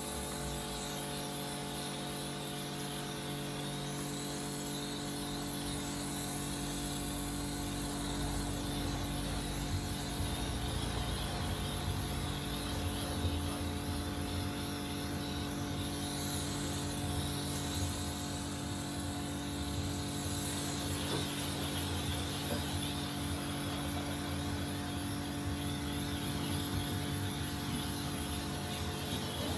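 Kärcher K4 pressure washer running under load: a steady electric motor and pump hum with the hiss of water spraying from the lance, a little louder after the first several seconds.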